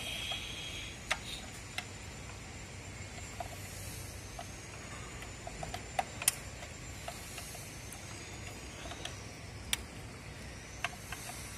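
Scattered sharp clicks and taps of a screwdriver working the terminal screws of a contactor motor starter, over a steady faint hiss.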